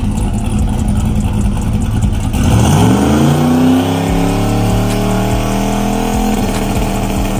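Turbocharged 5.3-litre V8 engine making a dyno pull: it runs steadily at first, then from about two and a half seconds in its pitch climbs steadily as the revs build, levelling off near the end.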